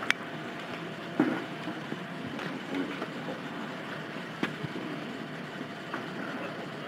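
Steady hum of street noise, with a few sharp clicks of camera handling.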